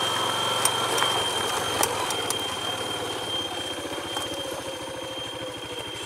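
Small vehicle engine running as the vehicle slows down, its beat getting slower and more distinct toward the end as it drops toward idle, with a steady high whine and a few sharp clicks.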